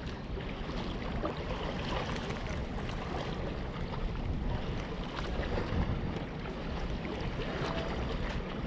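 Wind on the microphone and water lapping at a rocky shoreline, a steady rushing noise with a few faint ticks.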